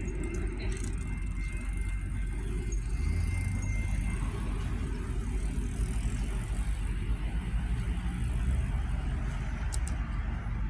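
Train rumbling steadily, with a thin high squeal from about one second to about four seconds in.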